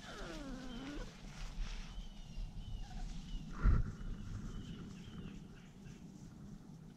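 Standard Schnauzer puppy whining: one drawn-out whine in the first second that dips in pitch and rises again. Faint high chirps follow, with a single thump a little past halfway.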